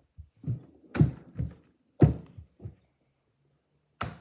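A handful of dull thumps and knocks, like objects being handled and set down on a hard surface, the two loudest about one and two seconds in.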